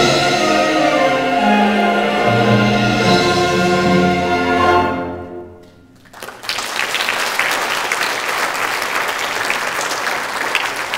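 Choir with orchestra and piano holding a final chord that dies away about five seconds in; about a second later the audience starts applauding and keeps clapping.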